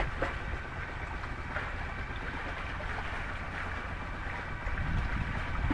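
Wind buffeting the microphone and water rushing along the hull of a sailboat under way, with a faint steady high hum.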